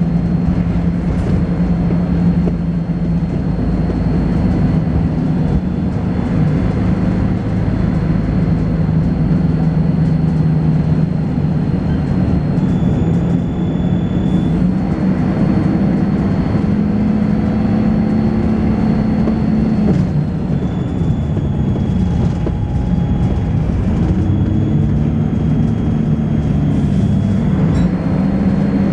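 Volvo B10BLE single-deck bus on the move, heard on board: diesel engine and ZF automatic gearbox running, the engine note rising and falling a few times in the second half. A thin, steady high-pitched whine runs over it, breaking off twice, along with the body's rattling thrash.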